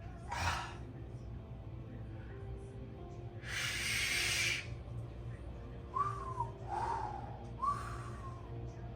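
A man breathing out hard through the mouth: a short puff near the start, a long hissing exhale in the middle, then three or four quick breathy gasps, each with a short voiced 'hah', as his mouth and stomach burn from the mouthwash he drank.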